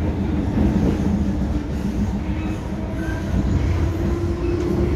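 Running noise of an MTR M-Train electric multiple unit heard from inside the passenger car: a steady rumble of wheels on rail with a low hum that strengthens near the end.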